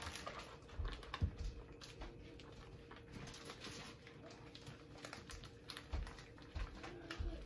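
Zip-top plastic bag being handled and pulled open: soft, irregular crinkling and small plastic clicks, with a few low knocks.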